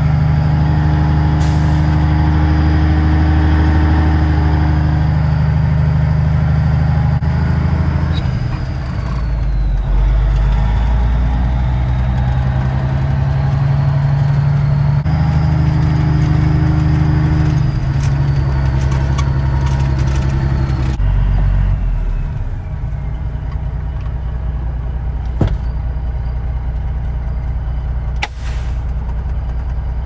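Truck engine heard from inside the cab while driving across a stubble field, its note dropping and changing pitch several times as it shifts gears. A couple of sharp clicks come near the end.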